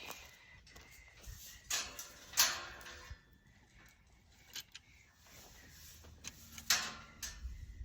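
A few sharp knocks and rattles, the loudest about two seconds in and again near the end, as fencing gear is handled.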